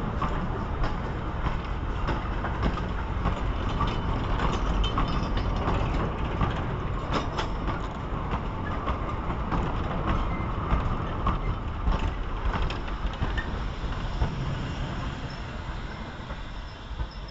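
Four-wheeled goods wagons rolling past, their wheels clattering over the rail joints with frequent clanks, then a brake van; the sound eases off near the end as the train moves away.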